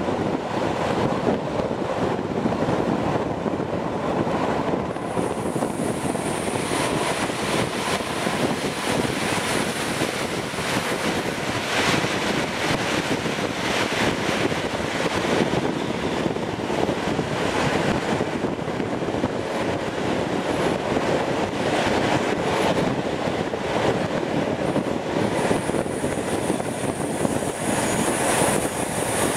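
Diesel-hauled passenger train running along the line, heard at an open coach window: a steady rush of wheels on rail and air. A thin high whistle comes in about five seconds in and fades again, then returns near the end as the train takes a curve.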